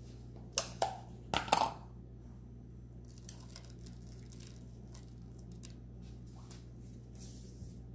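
Coarse salt crystals sprinkled by hand over a sliced steak and wooden cutting board: a few sharp crunching clicks in the first two seconds, then faint scattered ticks, over a steady low hum.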